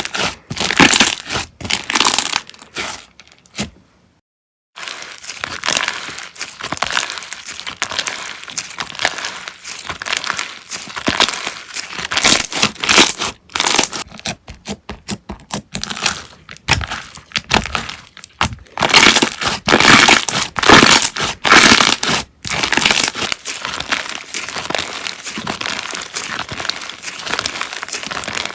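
Slime being squeezed and pressed by hand, making a dense run of short crackles and pops, with about a second of silence near the four-second mark.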